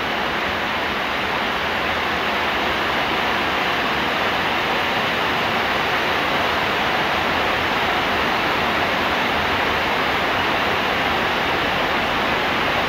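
Heavy rain falling steadily, an even hiss with no breaks or changes.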